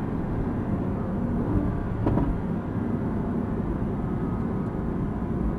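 Mercedes-AMG sports car's engine and road noise heard from inside the car at track speed, a steady low rumble as the car slows from about 70 to 50 mph under braking for a corner.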